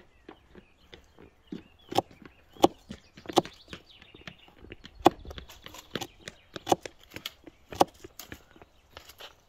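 Kitchen knife slicing green onions on a wooden cutting board: irregular knocks of the blade hitting the board, a few sharp louder ones among lighter, quicker taps.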